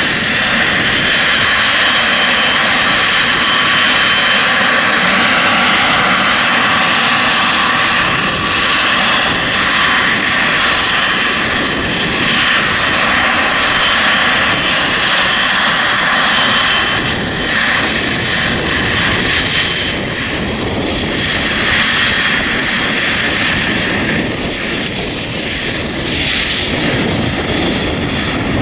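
Boeing 777 freighter's twin GE90 jet engines running at taxi power: a steady rush with a high, steady whine. The whine weakens after about seventeen seconds as the aircraft turns past.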